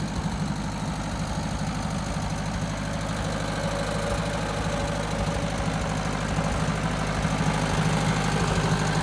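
Sawmill's engine running steadily at idle, kept running to power the log loader's hydraulics through its alternator; it gets slightly louder near the end.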